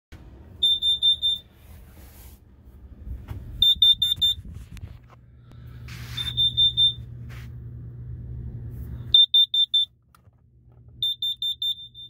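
Boat's carbon monoxide alarm sounding in bursts of four to six rapid high beeps, a burst every two to three seconds. It is a false alarm, which the owner blames on hydrogen gas from the house batteries charging on shore power. A low steady hum underneath stops about nine seconds in.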